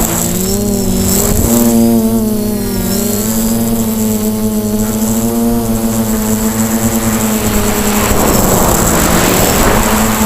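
Quadcopter's electric motors and propellers whining in flight, several close tones wavering a little in pitch as the throttle changes, with rushing air noise that swells near the end.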